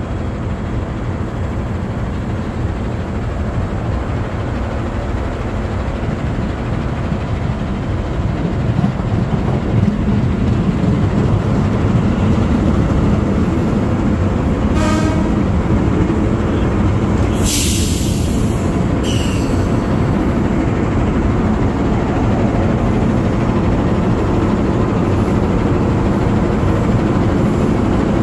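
Electric commuter train approaching and running past at close range, its rumble growing louder about eight seconds in. A short horn blast sounds midway, followed a few seconds later by a loud hiss lasting about a second.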